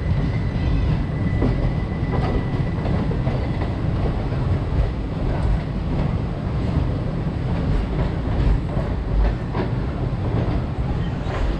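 Circar Express express train running along the track: a steady rumble with the wheels clacking over the rail joints.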